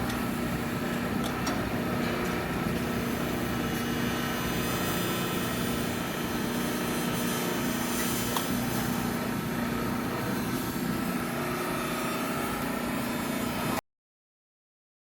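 Steady machine hum with a constant low tone, like a motor or pump running, which cuts off abruptly into dead silence near the end.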